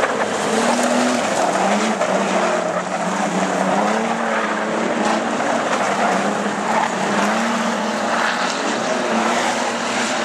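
Several street stock sedans racing on a dirt oval, their engines revving up and easing off in overlapping, rising and falling pitches.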